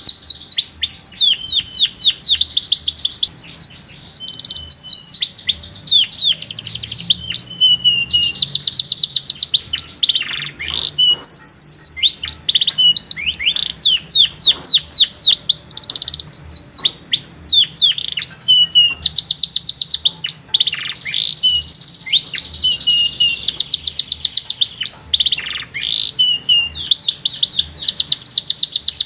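Canary singing: long, fast trills of rapidly repeated notes alternating with quick rising and falling whistled sweeps, one phrase after another with only brief breaks.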